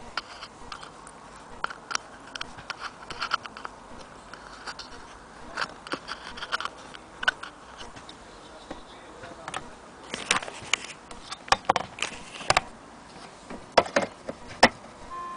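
Irregular clicks, taps and small metallic knocks of a vintage HMV No. 5A gramophone sound box being handled and fitted to a gramophone tone arm, the knocks coming thicker and sharper in the last third.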